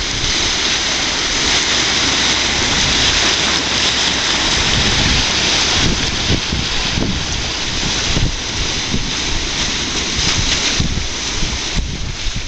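Large whirlpool over a lock's underwater filling intake, churning and rushing steadily as river water is sucked down to fill the lock chamber, with a rough rumble underneath that wind on the microphone adds to.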